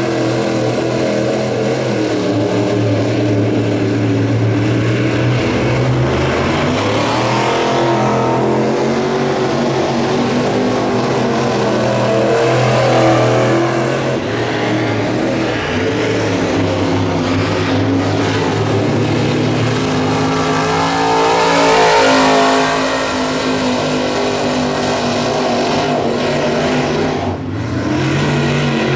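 Dirt late model race car's V8 engine running hard on a qualifying lap, the note rising and falling as it accelerates off the corners and circles the track. It is loudest about two-thirds of the way through as the car passes nearest.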